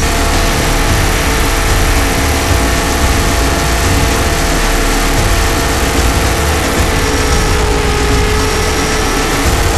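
The electric motor and drive gears of a T-Rex 500 RC helicopter whine steadily in flight, heard from inside its scale Black Hawk fuselage. Heavy low buffeting from the rotor wash runs under the whine, and the main tone dips slightly near the end.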